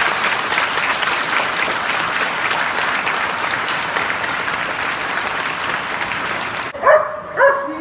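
A large crowd of students clapping in a school gymnasium, a steady round of applause that cuts off suddenly nearly seven seconds in. Then a dog starts yipping and whining.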